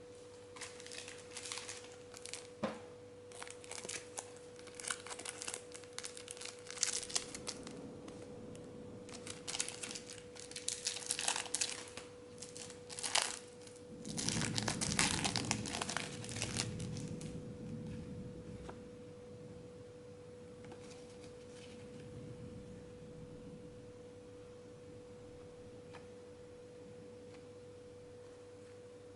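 Foil trading-card packets and plastic wrapping being torn open and crinkled in repeated bursts, dying down about two-thirds of the way through. A steady faint tone hums underneath throughout.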